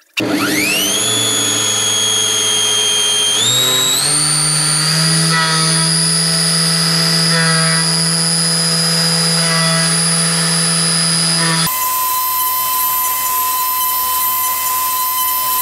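CNC milling machine spindle spinning up: a whine that rises in pitch, steps up twice and settles to a steady high whine. About twelve seconds in, the sound switches abruptly to a steadier, hissier machine sound carrying a single steady tone.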